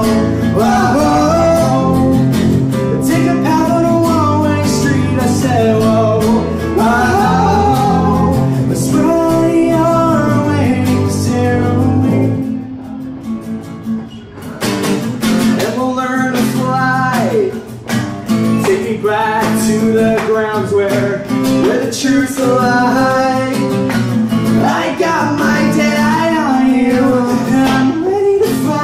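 Live acoustic music: a man singing over an acoustic guitar. The music drops back briefly about halfway through.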